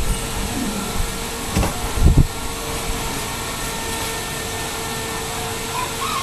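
Steady machine-like hum and hiss, like a fan or air conditioner running, with two soft low knocks about one and a half and two seconds in.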